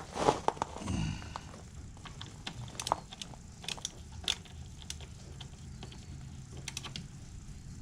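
Small clicks and taps of a hand tool working a screw out of a fish-finder transom mount. There is a louder knock and a short falling sound about a second in.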